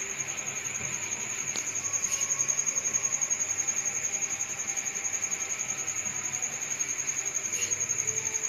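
An insect's steady high-pitched trill, pulsing fast and evenly throughout, with a few faint light taps.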